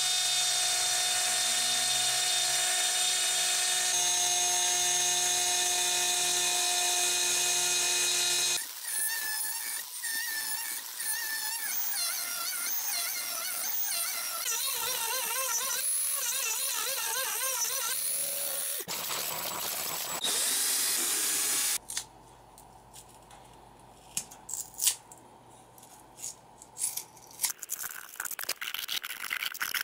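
Dremel rotary tool spindle, set low on its speed scale, milling MDF with an end mill on a DIY CNC machine: a steady whine with several tones, which about nine seconds in turns to a wavering, warbling pitch as the machine cuts. About 22 seconds in the motor sound stops, leaving scattered light scrapes and clicks of a utility knife trimming the MDF part.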